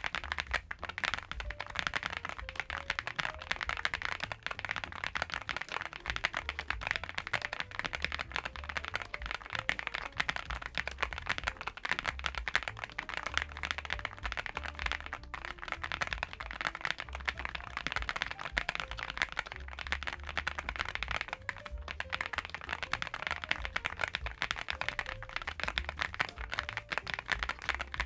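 Continuous typing on a NuPhy Gem80 mechanical keyboard with an aluminium case and PBT keycaps: a dense, unbroken stream of key clacks.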